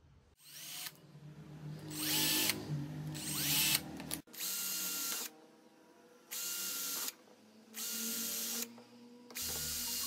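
Cordless drill running in about seven short bursts as it bores small holes through a thin black plastic disc. In the first few bursts the whine rises and falls in pitch as the trigger is squeezed and let go.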